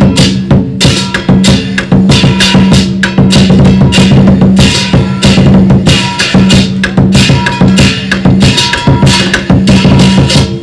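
Chinese drum and cymbals accompanying a kung fu performance, played as a fast, dense run of strikes without a break.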